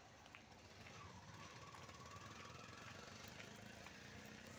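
Near silence: a faint, steady low background hum.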